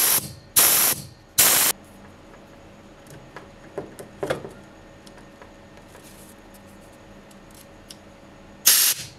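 Pneumatic Venturi solder extractor blowing short blasts of compressed air as its button is pressed: three hissing blasts in the first couple of seconds, then another near the end. A few faint clicks come between them.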